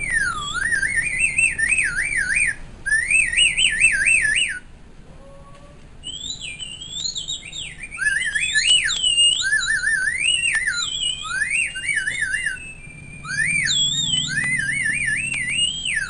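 Bamboo bird-call whistle blown in quick warbling trills and swoops, imitating a songbird's chirping song. The phrases break off briefly about five seconds in and again about thirteen seconds in.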